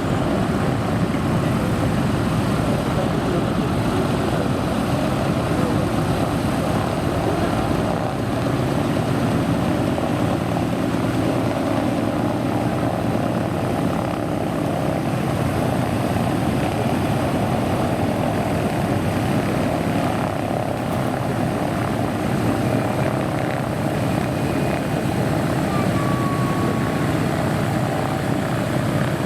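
Vintage propeller aircraft's piston engine running loud and steady, with its propeller.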